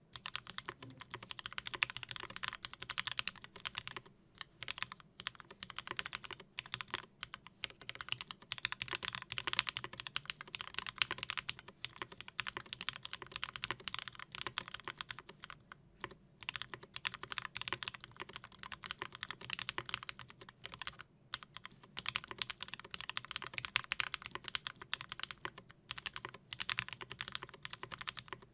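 Continuous typing on a mechanical keyboard with lubed pre-retooled Cherry MX Black linear switches (63.5 g springs), GMK doubleshot keycaps, an aluminum plate and an aluminum-and-polycarbonate case. Rapid, dense keystrokes, with brief pauses now and then.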